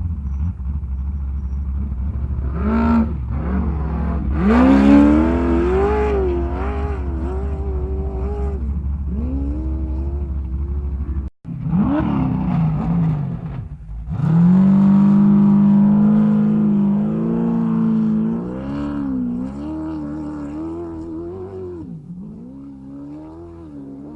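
Off-road race vehicle engines revving hard, pitch rising and falling with the throttle as they pass. The sound cuts off abruptly about eleven seconds in, and a few seconds later another engine revs up strongly, then fades.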